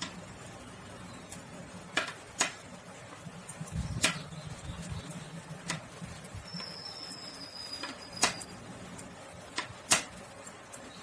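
Knitting needles clicking now and then as purl stitches are worked in fabric-strip yarn: a handful of sharp, irregularly spaced clicks, with a low rustle of handled yarn a few seconds in.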